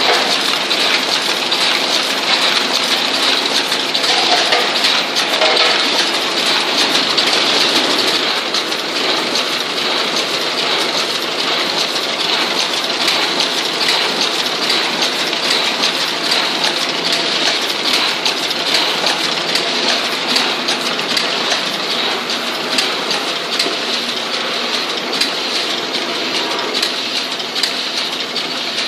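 Sapal BB chocolate-bar wrapping machine running at production speed: a steady, dense mechanical clatter of rapid clicks and knocks over a hiss.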